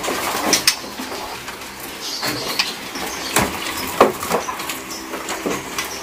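Songbirds chirping in short, sharp calls, scattered about one or two a second.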